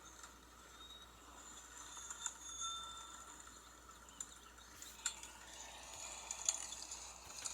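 Faint, scattered light clinks and taps of small hard objects, with a couple of brief ringing tones.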